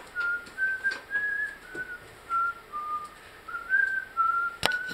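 A person whistling a slow little tune of short held notes that step up and down in pitch. There is a sharp click near the end.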